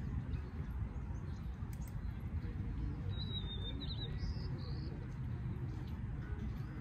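Outdoor ambience: a steady low rumble of wind on the microphone, with a bird giving a short, rapidly warbling chirp about three seconds in.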